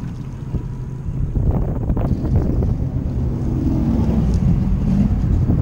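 Steady wind rumble on the microphone, with a few short splashes about a second or two in from a small hooked striped bass thrashing at the surface beside the boat.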